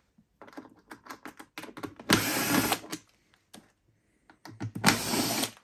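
Cordless drill-driver with a Torx T15 bit running in two short bursts of under a second each, backing screws out of a Thermomix's plastic housing, with scattered clicks and rattles of handling between them.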